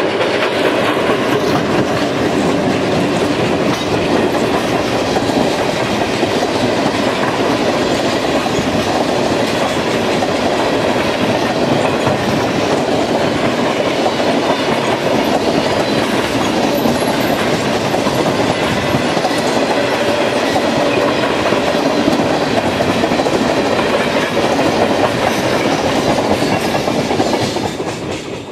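Freight train of tank cars rolling past close by, wheels clattering over the rail joints in a steady loud rush. The last car clears and the sound drops away near the end.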